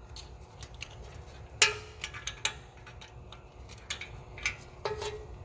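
Small metal parts of a parking brake shoe assembly clicking and clinking as they are handled and fitted by hand. The loudest is a sharp clink about one and a half seconds in; another comes near the end, and both ring briefly.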